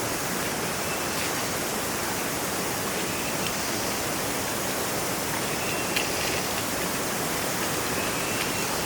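River water rushing steadily, with a few faint short high chirps and a light click about six seconds in.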